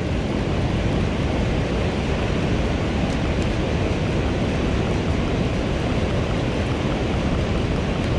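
Steady rush of water pouring through a dam's open spillway gates and churning in the tailwater below.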